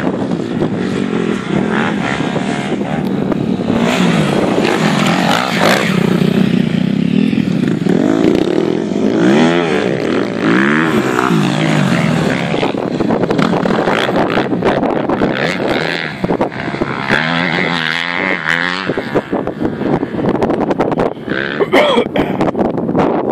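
250 cc motocross bike engine revving as it rides off-road, the engine note repeatedly rising and dropping with throttle and gear changes.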